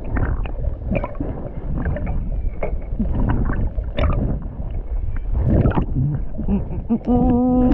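Water sloshing and gurgling around a camera held underwater, heard muffled, with many scattered clicks and knocks. Near the end a muffled humming voice sounds briefly.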